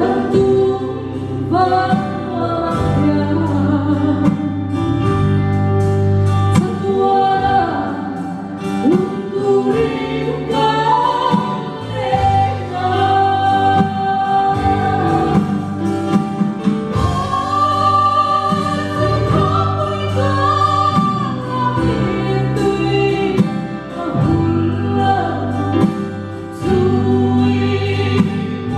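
A woman singing a Mizo gospel song into a microphone, amplified through a sound system, over a band accompaniment of electronic keyboard and drums.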